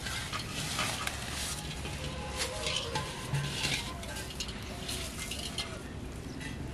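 Hands handling a clay pot and a plastic bag: scattered rustles and light scrapes that come and go irregularly.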